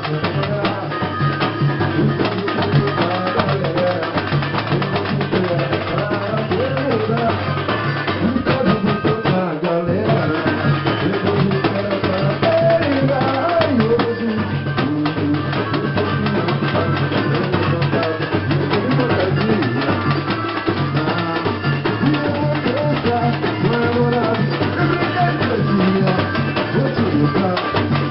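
Batucada percussion group playing: drums and percussion keep up a dense, steady beat, with a melody running over it.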